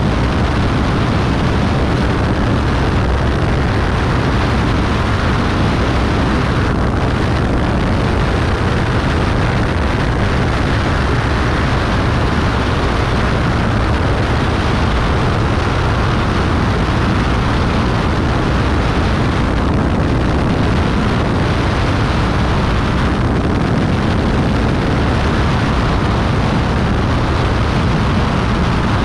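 Beechcraft Bonanza B35's piston engine and propeller running steadily under heavy wind rush on an outside-mounted camera, as the plane banks onto final approach and lines up with the runway.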